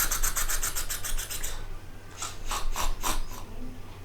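A rasping, scratching sound effect: a quick run of strokes, about ten a second, for about a second and a half, then a few slower strokes over the next second or so.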